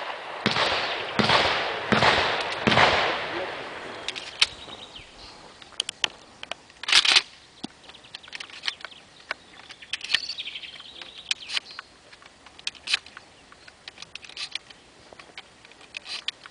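Benelli M3 shotgun firing a quick string of about four shots, each with a long echoing tail, then one more shot about seven seconds in. This is followed by a run of sharp metallic clicks as shells are pushed into the magazine tube during a reload.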